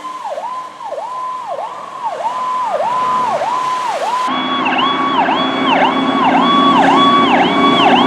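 Emergency vehicle sirens sounding the Powercall tone: a pitch that holds high and dips sharply down and back up about twice a second. About four seconds in it cuts to a second, louder siren in the same tone, with a low steady hum underneath.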